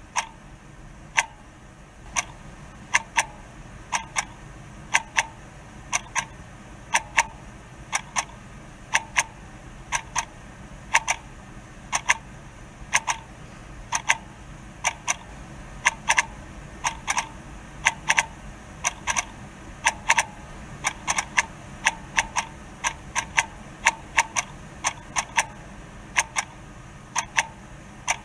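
Clock ticking: sharp clicks, about one a second at first, then coming faster and more unevenly in quick pairs.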